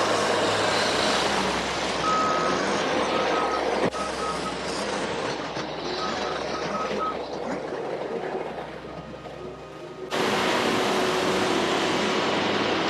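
Sherp amphibious ATVs running through icy lake water, their engines and churning tyres making a steady noisy din. A short high beep repeats in small groups through the first half, and the sound jumps louder suddenly about ten seconds in.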